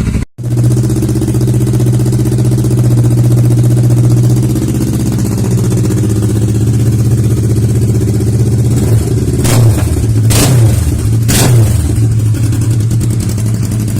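Kawasaki Versys 650's parallel-twin engine idling through a LeoVince SBK aluminium slip-on exhaust with its dB killer removed. About nine seconds in, it is blipped three times in quick succession, each rev rising and dropping straight back to idle. There is a brief dropout just after the start.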